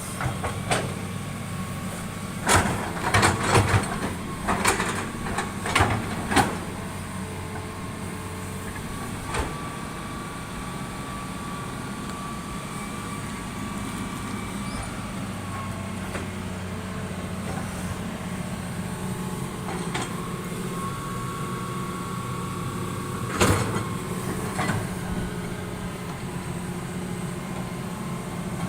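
Heavy diesel construction machinery running steadily at a low hum, with a cluster of sharp metal clanks and knocks a few seconds in and another near the end, and a thin steady whine that comes and goes.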